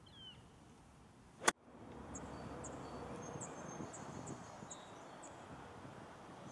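A golf club striking the ball off the turf in a full swing: one sharp crack about a second and a half in. Afterwards a bird chirps in short, high notes about twice a second.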